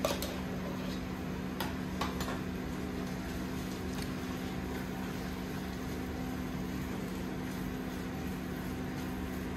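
A spoon clicks and scrapes a few times against a plastic tub and the pan in the first couple of seconds as ketchup goes into the meat sauce, then the sauce is stirred quietly in a nonstick pan with a silicone spatula. A steady low hum runs underneath.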